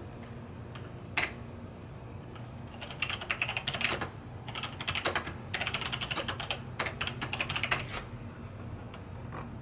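Typing on a Logitech G613 wireless mechanical keyboard with Romer-G switches: a single keystroke about a second in, then four quick runs of rapid keystrokes that stop about two seconds before the end.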